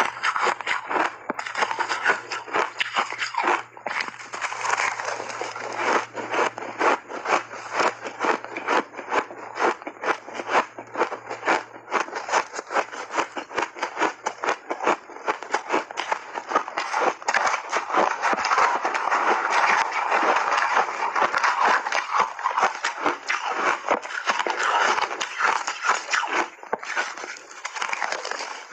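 Close-up crunching and chewing of refrozen shaved ice, a dense, rapid run of crackling crunches.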